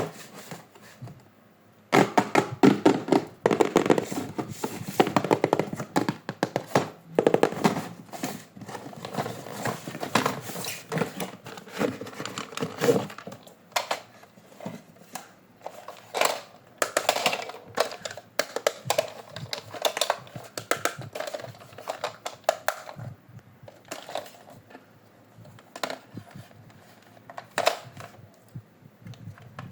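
Toy and packaging being handled: a dense run of rustling, clicks and knocks for about ten seconds, then scattered clicks and knocks.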